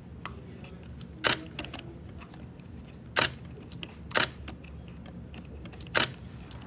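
Nikon D500 DSLR shutter firing four times at uneven intervals, as test shots to see whether the radio trigger on the hot shoe sets off the flash, with faint handling clicks between the shots.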